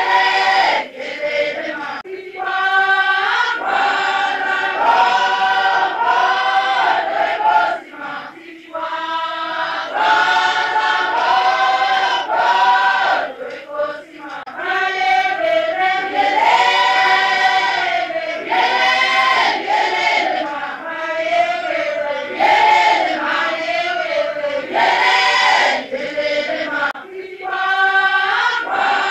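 A choir singing in several voices, with brief pauses about 8 and 14 seconds in.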